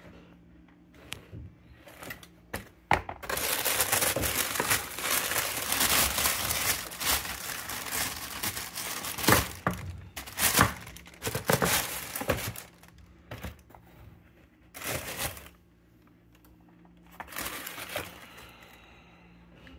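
Shoe packaging being unwrapped and handled, crinkling and rustling. It starts with a few light touches, runs on densely for about ten seconds with a few sharp cracks, then breaks into short separate bursts.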